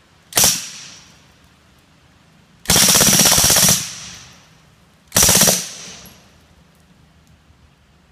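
Suppressed 9mm Ingram Mac-11 with a SilencerCo Octane suppressor firing three full-auto bursts: a very short one about half a second in, a longer one of about a second near three seconds in, and a half-second burst at about five seconds, each fading out afterwards.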